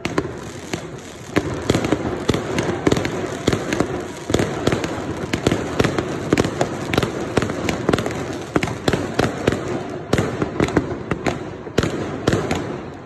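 Fireworks going off in quick, irregular succession: many sharp bangs and crackles from aerial bursts overhead.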